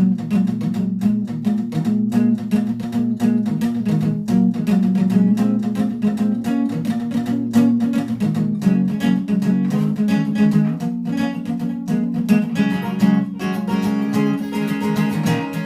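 Acoustic guitar strummed in a steady rhythm, an instrumental break in a song with no singing.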